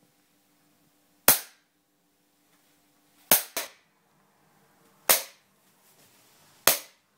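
Five sharp cracks of high-voltage capacitor discharges fired through a spark gap into water: electrohydraulic (Yutkin-effect) shocks. They come about one and a half to two seconds apart, with two in quick succession near the middle.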